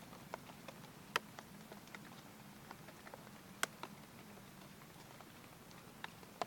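Light rain: scattered raindrops tapping irregularly over a faint steady hiss, with two sharper taps, about a second in and about three and a half seconds in.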